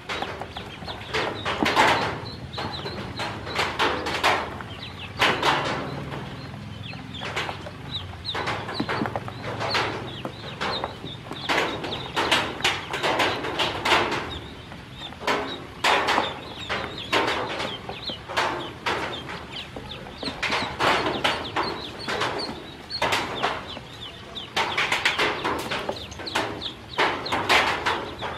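A group of newly hatched ducklings peeping continuously: many short, high peeps overlapping, coming in denser bursts every second or two.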